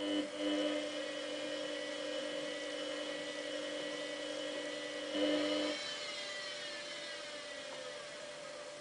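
Samsung WF8804RPA washing machine's drum motor whining as it turns the dry load to sense how full the drum is. It surges briefly about five seconds in, then winds down with a falling whine.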